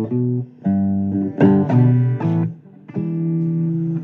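Blues guitar playing a run of plucked notes and chords, with a bass line under it.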